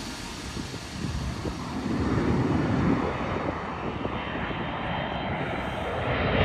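Airliner engine roar as a landing plane passes, swelling about two seconds in, with wind buffeting the microphone.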